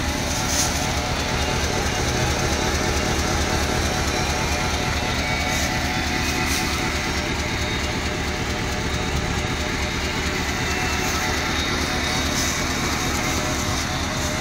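Pickup truck engine idling steadily, with an even low pulsing.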